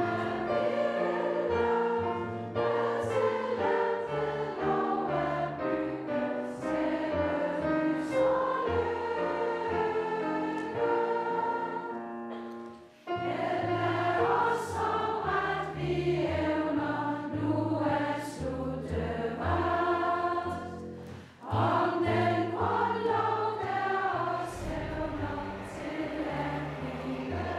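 A group of voices singing a song together in chorus over a steady low accompaniment, with two short breaks between phrases, about halfway through and again about three-quarters of the way through.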